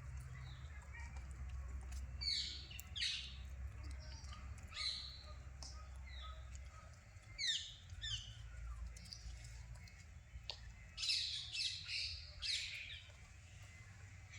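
Birds calling in short, sharp chirps that sweep downward in pitch, coming in quick runs of two or three, over a steady low rumble.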